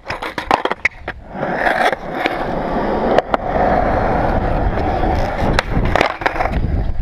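Skateboard on concrete: a few light clacks of the board, then from about a second in the steady rolling rumble of urethane wheels over the skatepark floor. Sharp clacks of the deck cut through the rolling, with two close together near the end as the board is tipped up for a trick.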